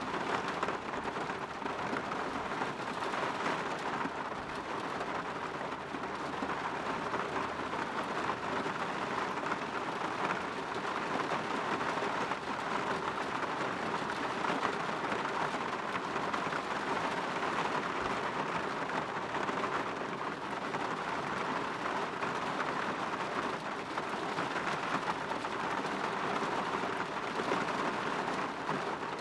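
Steady rain falling on a window: an even hiss of many drops, without pauses or separate loud events.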